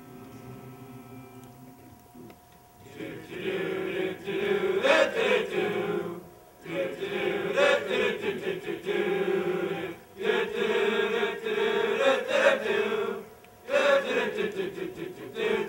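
Choir of young men and women singing together in four phrases with brief breaks between them, starting about three seconds in.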